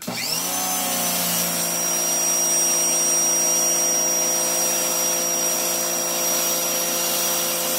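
Greenworks GPW1702 1700 PSI electric pressure washer starting up, its motor and pump rising in pitch within about half a second, then running steadily with the hiss of the water jet spraying concrete.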